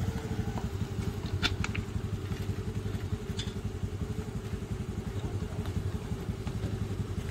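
A motor vehicle engine idling close by, a steady rapid low pulse, with a few short sharp clicks about a second and a half in and again near the middle.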